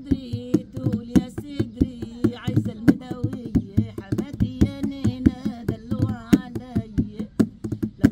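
A woman singing an Egyptian folk song while beating a quick, steady rhythm with her hands on a percussion instrument; the sharp hand strikes run all through the singing.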